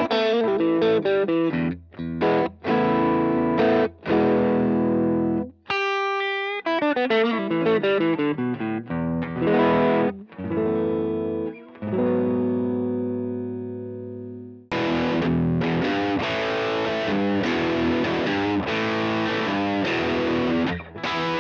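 Black Fender Stratocaster electric guitar played through a Fender Deluxe Reverb amp with an Ibanez Tube Screamer overdrive pedal, giving a mildly overdriven riff of chords and single notes, with one held note ringing out about six seconds in. About fifteen seconds in the tone switches abruptly to a brighter, heavier distortion from a Carl Martin Plexitone pedal.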